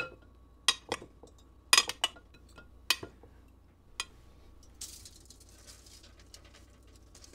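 Metal utensils clinking against a glass baking dish: about seven sharp clinks over the first four seconds while fish fillets are pressed into a Parmesan breading. About five seconds in there is a brief soft rustle.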